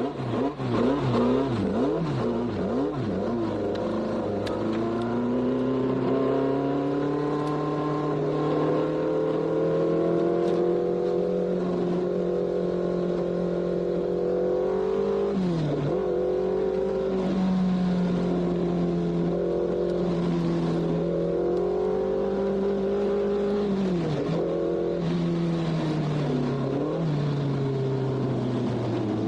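Formula 1 racing car engine at high revs. It revs up and down quickly for the first few seconds, then holds a long sustained note whose pitch dips sharply and climbs back three times: about halfway through, and twice near the end.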